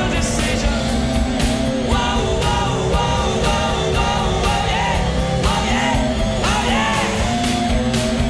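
Rock music with singing over a steady drum beat.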